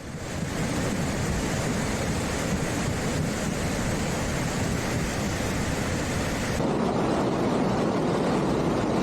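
Steady rushing noise of water, such as floodwater or heavy rain, without speech. Its character changes abruptly about six and a half seconds in, with less hiss and more of a fuller rush.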